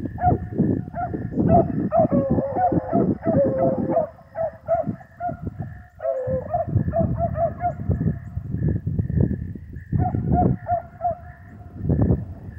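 A pack of beagles baying on a rabbit's trail, in quick runs of short repeated notes that break off for a moment about four seconds in and pick up again. A loud low rumble comes and goes underneath.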